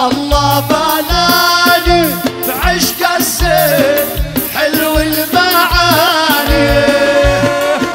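Middle Eastern folk dance music: a wavering melody with pitch slides over a steady drum beat.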